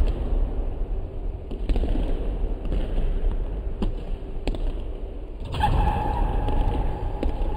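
Basketball shooting on an indoor gym court: a few sharp knocks of the ball over a steady low rumble. A steady high hum comes in about two-thirds of the way through.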